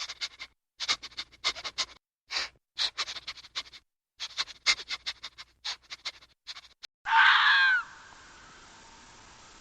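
A quick irregular run of short scratchy clicks, then one loud animal call about seven seconds in.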